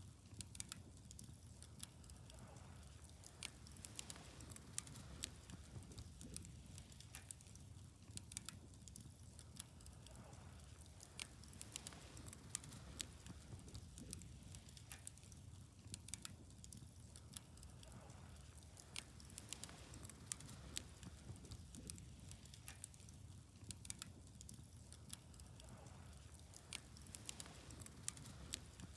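Wood fire burning, faint, with irregular sharp crackles and pops several times a second.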